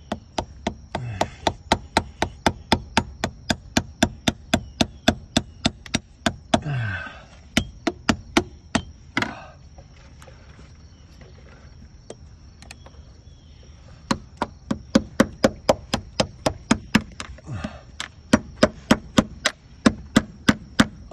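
Metal spatula (putty knife) wedged under a glued-on B60 transducer being struck sharply and repeatedly, about three blows a second, to drive it through the 5200 adhesive bond. There are two fast runs of blows with a pause of several seconds between them.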